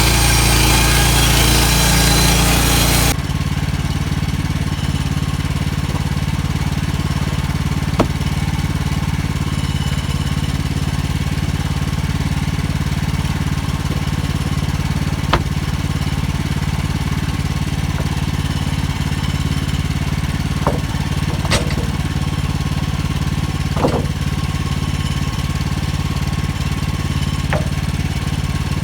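Gas engine of an HM130 Max portable bandsaw mill running. The blade is cutting under load for about three seconds, then the sound drops suddenly to a steady, lower run, with a few sharp knocks scattered through it.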